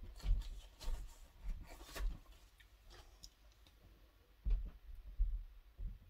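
Dry puffed soap foam, microwaved soap, being broken into small pieces by hand: a crisp crumbling crackle with several sharp clicks in the first two seconds, then a faint rustle. A couple of soft low knocks follow about four and a half and five seconds in.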